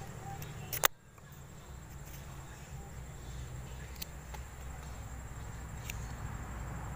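Steady high-pitched chirring of insects, with a single sharp click about a second in.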